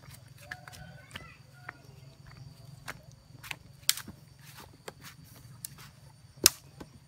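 Dry twigs and thin sticks cracking and snapping as they are picked up and broken by hand, with footsteps on dry ground; a sharp crack about four seconds in and a louder one near the end, over a low steady hum.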